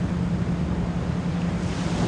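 Ocean waves washing in a steady rush, layered over a low 174 Hz pure tone. The tone is pulsed on and off as an isochronic beat at roughly 10 to 16 pulses a second.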